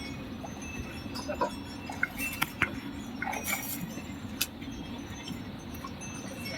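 Small bells on the bullocks jingling and clinking in scattered bursts, thickest from about a second in to past the middle, over a steady low background noise.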